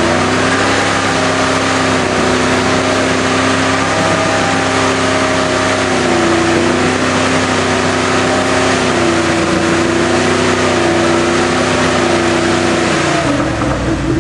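International Harvester Scout's engine held at high revs under load as it crawls up a slick rock ledge, its pitch wavering up and down with the throttle. The revs fall away about a second before the end.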